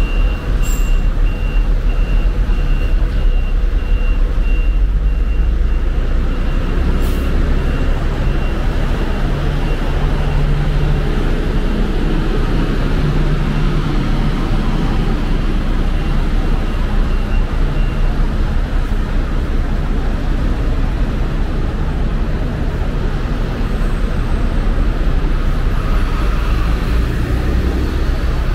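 Heavy vehicle engine rumbling with traffic noise, and a reversing alarm giving a steady series of high beeps that stops about two-thirds of the way through.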